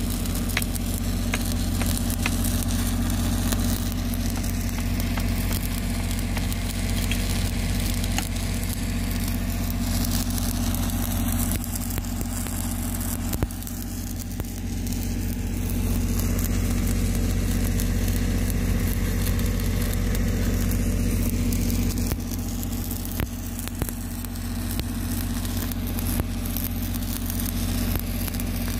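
Stick-welding arc crackling and sizzling as a weld pass is run over a crack in a leaking steel water pipe, over a steady engine hum. The arc breaks off briefly near the middle.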